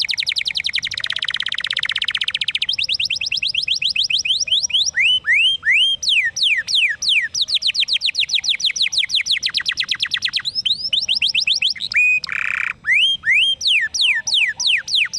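Domestic canary singing a long, shrill song of trills: rolls of rapidly repeated whistled notes, some very fast and dense, others slower sweeps of a few notes a second. There is a brief harsh buzzy note about twelve seconds in.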